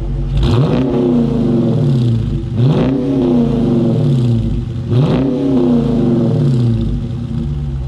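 2019 Dodge Challenger R/T's 5.7-litre Hemi V8, heard at its stock dual exhaust, revved three times from idle. Each rev rises quickly and falls back slowly, with a low idle rumble between.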